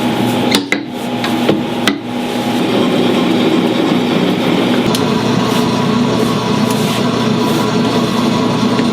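Food-preparation work sounds: a few sharp knocks and clatters in the first two seconds and another about five seconds in, over a steady machine hum.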